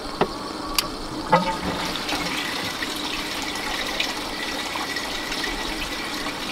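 A few sharp knocks in the first second and a half, then water starting to run steadily through clear plastic hoses into a plastic bin, the aquaponics pump and UV filter having just been switched on.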